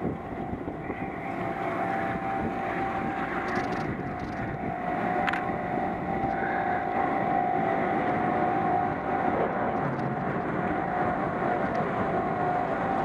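Chairlift running as the chair goes around the top terminal: a steady machine whine over wind noise, with one sharp click about five seconds in.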